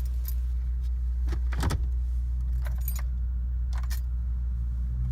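Keys on a key ring jangling and clicking at the ignition of a Jeep that will not crank, a few short jingles over a steady low hum.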